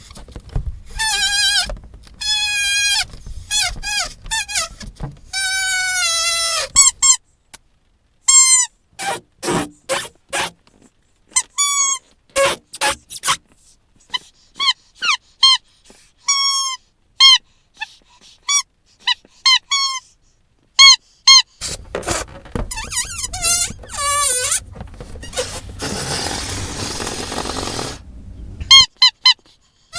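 A squeaky dog toy squeezed over and over. It gives many short, high squeaks, some in quick runs and some on their own, with a stretch of background hiss under the squeaks near the end.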